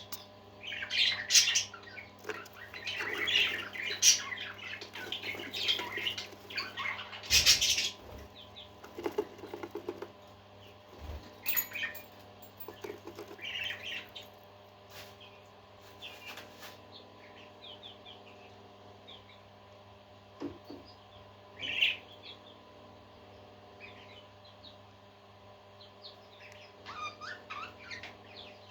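Pet parakeets chirping and chattering in quick short bursts, busy for the first half and sparser after, with a burst of chatter again near the end, over a steady low hum.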